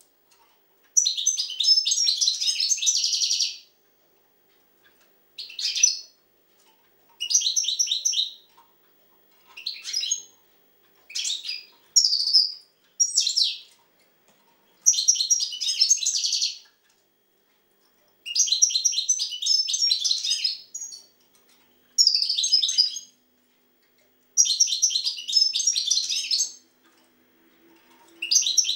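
European goldfinch singing: about a dozen bursts of rapid, high twittering song, each from half a second to a couple of seconds long, separated by short pauses.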